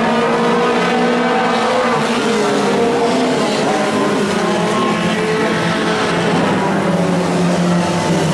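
A pack of Pro 4 race trucks' engines running at racing speed around a short oval, several overlapping engine notes rising and falling.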